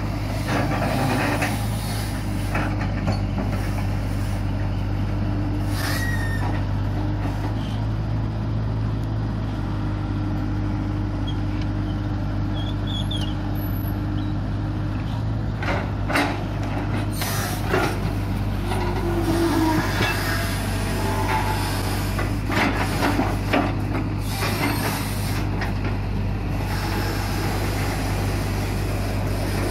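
Tracked excavator's diesel engine running steadily while the bucket digs mud out of a water-filled ditch, with a higher whine for a few seconds in the middle and a few short knocks of the bucket and boom.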